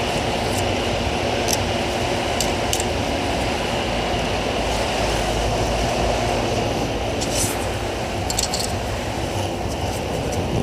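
Steady workshop background noise with a low hum, and a few short sharp clicks scattered through it, like small metal parts being handled.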